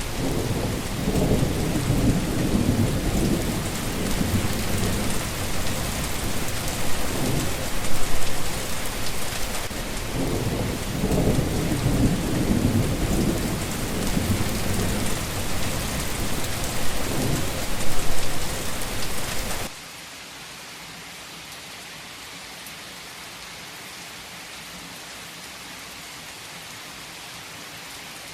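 Heavy rain falling steadily, with two long low rolls of thunder. About two-thirds of the way through, the sound drops suddenly to much quieter, steady rain with no thunder.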